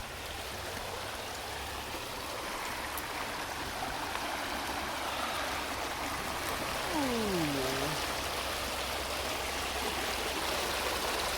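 Creek water rushing steadily over rocks and small waterfalls, growing slightly louder. About seven seconds in there is a brief downward-gliding tone.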